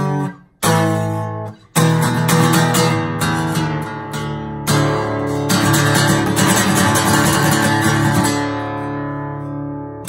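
Acoustic guitar strummed: a few short chord stabs cut off near the start, then steady strumming, ending on a chord left to ring out and fade.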